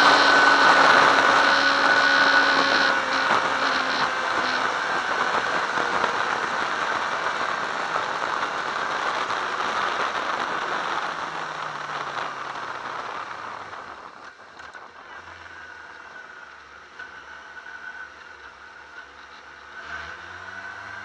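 Sport motorcycle heard through its onboard camera: wind rush and a steady engine note at speed, fading over the first half as the bike slows. From about two-thirds of the way through, only a quieter low-revving engine and light wind remain.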